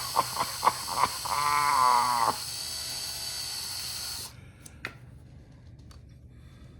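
Power drill run slowly with a left-handed bit into a broken sprocket bolt, the motor pulsing and changing pitch as the trigger is feathered, with a steady high whine. It stops suddenly a little after four seconds in, followed by a couple of sharp clicks.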